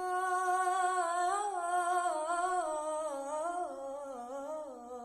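A girl singing an unaccompanied Arabic nasheed, holding one long ornamented melisma on a single breath that wavers and slowly falls in pitch.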